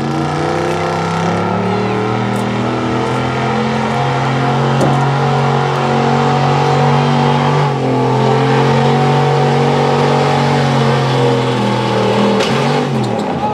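2003 Dodge pickup's gasoline engine held at high, steady revs under full load as it drags a pulling sled. Near the end the revs fall away.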